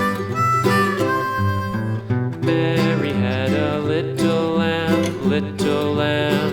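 Country-style background music: a harmonica melody, then acoustic guitar joining in as a full band.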